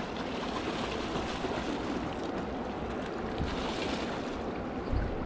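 Steady rush of a shallow river's current running over rocks, with a brief low buffet of wind on the microphone near the end.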